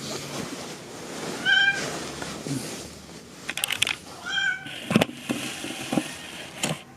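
Young kittens mewing: two short, high-pitched mews a few seconds apart, followed by a few sharp knocks near the end.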